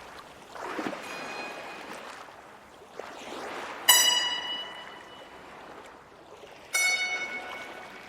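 Music: two struck or plucked notes, one about four seconds in and one near the end, each ringing out and dying away slowly over a soft hiss.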